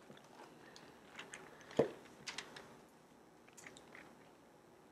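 Thin Bible pages being leafed through: faint scattered paper rustles and crinkles, with one soft knock a little under two seconds in.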